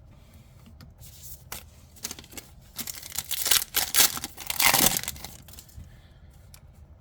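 A trading-card booster pack's foil wrapper being torn open and crinkled, a rustling crackle that builds to its loudest about three to five seconds in.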